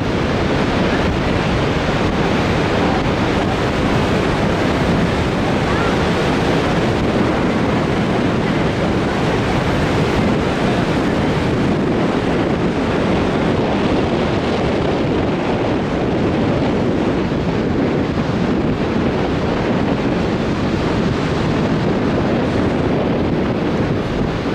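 Lower Falls of the Yellowstone River: a loud, steady rush of water plunging over the falls, heard close up from the brink, with some wind on the microphone.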